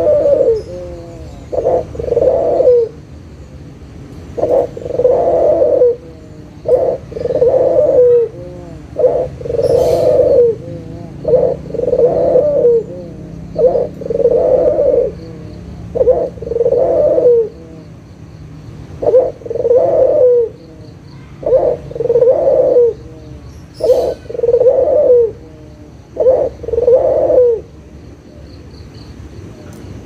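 Ringneck dove (puter, Barbary dove) cooing over and over, low rolling coos about a second long coming every second or two. It stops a couple of seconds before the end.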